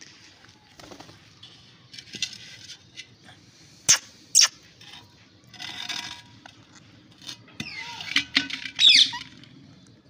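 Rose-ringed parakeets making harsh squawks and squeaky chirps in short bouts, with two short, sharp, loud calls about four seconds in and a run of rising and falling chirps near the end.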